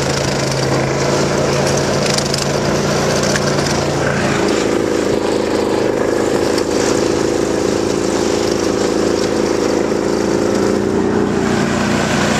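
Ski-Doo Expedition TUV 800 snowmobile engine running under way. About four seconds in the revs rise to a higher, steady pitch and hold.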